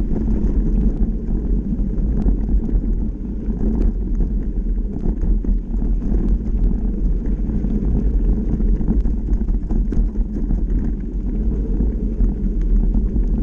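Wind buffeting the microphone and the mountain bike's knobby tyres rolling over a dirt trail: a steady low rumble scattered with small clicks and rattles from the bike and loose gravel.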